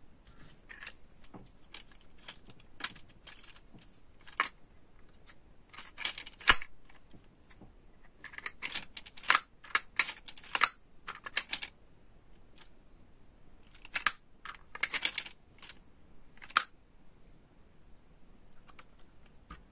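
Plastic clicking and clattering from a dragon lollipop-holder toy being handled: its jointed plastic arms swing and knock, and its hinged head is opened and snapped shut. Irregular sharp clicks come in clusters, thinning out near the end.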